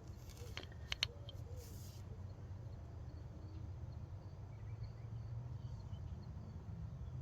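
A few light clicks from screwdrivers being handled about a second in, then only a low steady hum.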